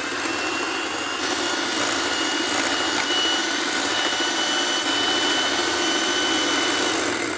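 Electric hand mixer running at a steady speed, its twin beaters whipping cream and sugar in a glass bowl. There is a steady high motor whine, which starts to wind down at the very end.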